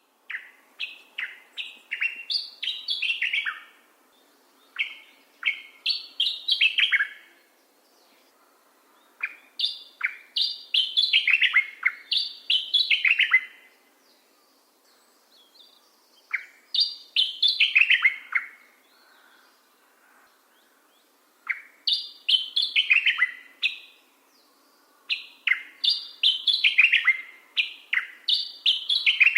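A Locustella warbler (grasshopper warbler) singing six loud phrases of quick notes, each note falling in pitch, with pauses of a second or two between phrases.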